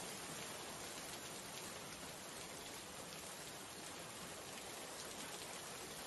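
Steady rain: an even, soft hiss with faint fine pattering, unchanging throughout.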